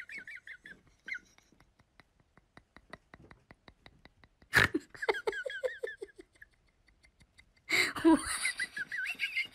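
Dog howling in high, wavering whines, in stretches with pauses between them, breaking out louder about halfway through and again near the end.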